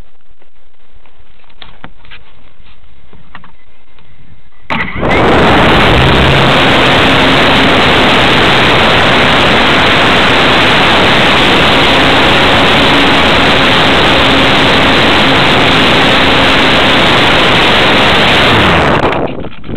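Electric motor and propeller of a ParkZone Radian glider, heard from an onboard camera: after a few faint clicks, about five seconds in it comes on suddenly with a loud, steady drone and rush of air, powering the climb to altitude. It cuts off shortly before the end.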